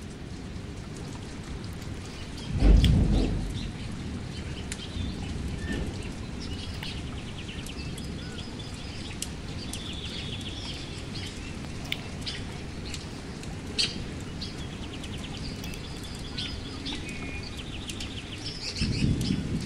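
Outdoor ambience: a low rumble of wind on the microphone, with a loud gust about two and a half seconds in and another near the end, over short, repeated, rapid high chirps and scattered faint clicks.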